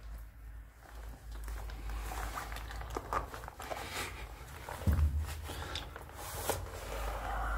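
Scuffing and handling noise from someone moving at the foot of an iron ladder in a small concrete shaft, with scattered light knocks and one heavier thump about five seconds in, over a low rumble.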